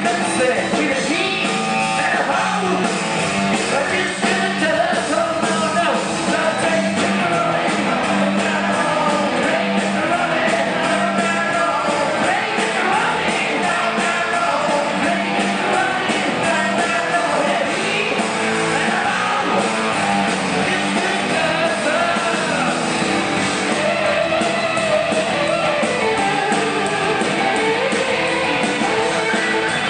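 Live rock band playing at full volume, electric guitars, bass and drums, with a male lead vocal singing over it.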